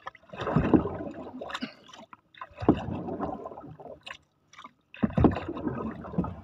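Wooden paddle pulling through sea water beside a small wooden boat: three strokes about two and a half seconds apart, each a sudden rush of water noise that fades away.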